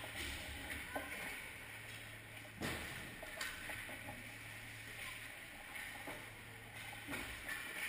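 Hockey rink warm-up: skate blades swishing and scraping on the ice, with a few sharp clacks of sticks and pucks, the loudest about two and a half seconds in, over a steady low hum.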